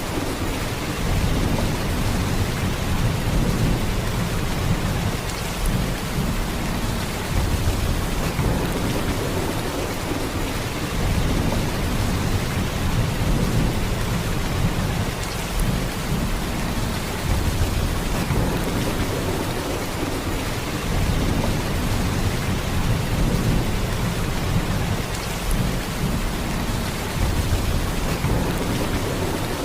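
Heavy, steady downpour of rain, a dense even hiss with a deep low rumble underneath that swells gently every few seconds.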